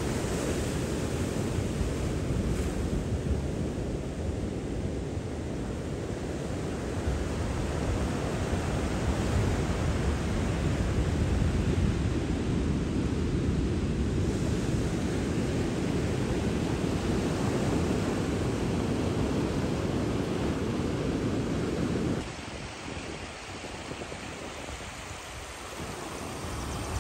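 Ocean surf washing over a rocky shore, mixed with wind on the microphone as a steady rushing noise. About 22 seconds in it cuts abruptly to a quieter, fainter rushing that swells again near the end.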